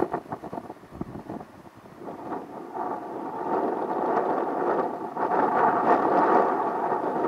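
Embraer 170 jet, with its CF34 turbofans, rolling along a wet runway toward the microphone: a rushing roar of engines and tyre spray that builds from about two seconds in and is loudest near the end. Wind buffets the microphone in the first couple of seconds.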